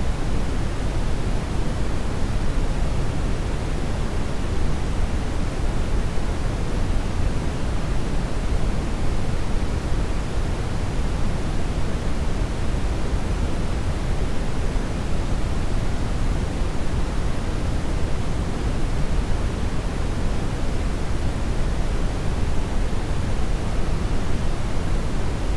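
Steady, unchanging synthetic noise: a continuous rush with its weight in the low end, thinning toward the highs, with no tones or events in it.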